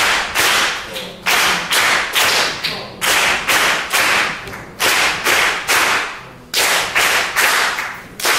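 A group of people clapping hands together in a steady rhythmic pattern, about one or two sharp claps a second, some in close pairs, each with a short ring in the room. It is a body-percussion rhythm exercise, clapping a four-beat pattern in time.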